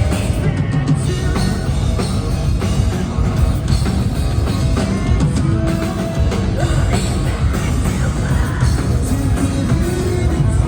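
Rock band playing live, loud and dense with heavy low end, with some singing.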